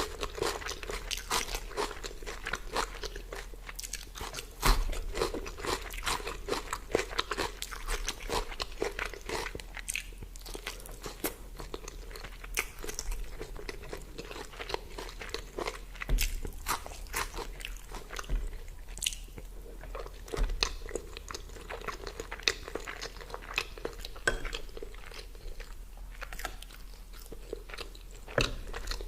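A person eating, heard close up: irregular crunching and chewing with many small crisp clicks and smacks.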